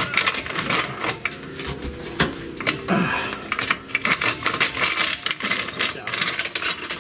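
ACDelco hydraulic floor jack being pumped by its handle to lift the car: a steady run of metallic clicks and clanks from the jack's pump and handle linkage.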